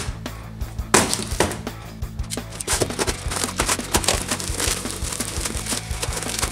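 Cardboard box being torn open by hand: flaps ripping, tape tearing and plastic wrap crinkling, with a sharp knock about a second in, over background music.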